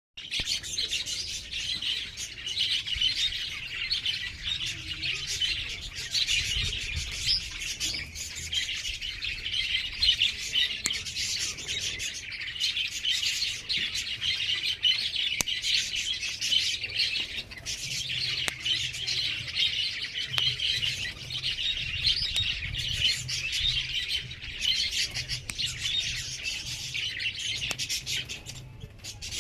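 A dense chorus of many small birds chirping and twittering without a break.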